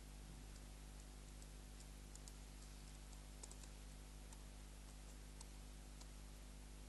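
Near silence: a steady low hum and hiss, with a scatter of faint, irregular small clicks.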